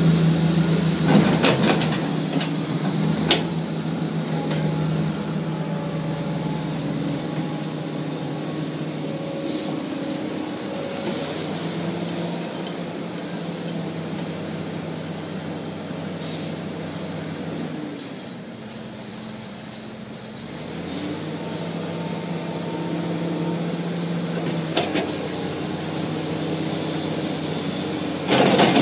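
Komatsu PC400 excavator's diesel engine working under hydraulic load while it loads dirt into a dump truck. There are a few metallic clunks from the bucket and boom near the start and again near the end. Past the middle the engine note drops and softens for a few seconds, then picks back up.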